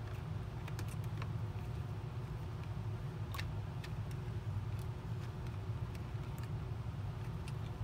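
Steady low background hum with a few faint, scattered plastic clicks and taps as the changeover hose is worked into the Dyson DC40's ball housing.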